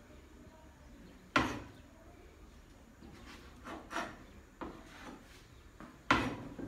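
A few irregular sharp knocks of a cleaver striking a cutting board on a wooden table, the two loudest about a second in and near the end, with lighter taps between.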